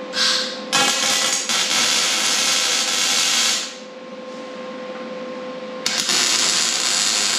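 MIG welder arc welding a steel roll-cage tube with a crackling hiss. A brief burst at the start is followed by about three seconds of steady welding, a pause of about two seconds, and a second weld of about two seconds near the end.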